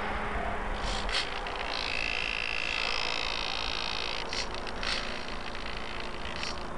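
A few irregular footsteps crunching in snow over a steady rushing noise, with a high whine lasting about two seconds in the middle.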